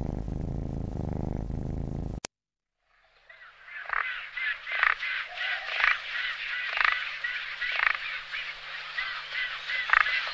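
Background music, which cuts off about two seconds in. After a brief silence, a dense chorus of animal calls starts: many rapid, repeated short calls, with louder calls standing out every second or so.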